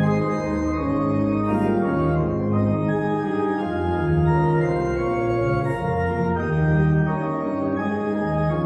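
Organ playing slow, sustained chords that change every second or so, as in a quiet service interlude.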